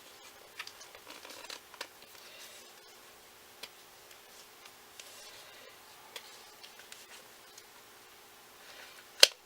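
Fingers scraping and tapping at a makeup palette's tight packaging while trying to pull it out, with faint scattered clicks, then one sharp, loud click near the end.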